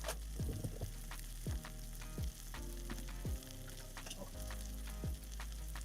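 A buttered sandwich frying in a pan, with a steady sizzle while the bread toasts and the cheese melts. Low thumps that drop in pitch come every second or so.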